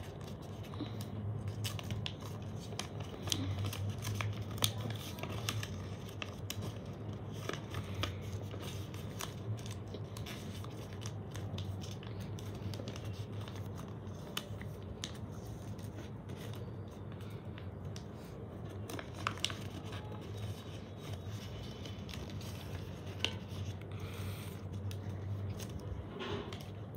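Origami paper being folded and creased by hand: scattered crinkles, rustles and scratches of paper against a wooden tabletop, over a steady low hum.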